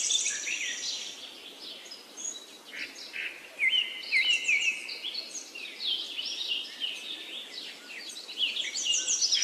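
Birds chirping and singing: many short notes sweeping up and down come in quick clusters. A high, rapid trill fades out at the start, and a similar one comes back near the end.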